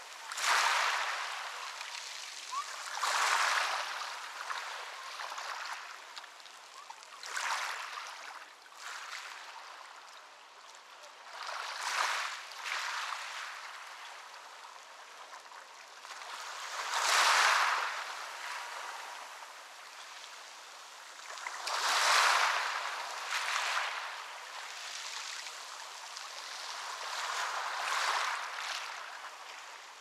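Ocean waves breaking and washing up a beach: seven surges of hiss, each swelling and fading, one every three to six seconds.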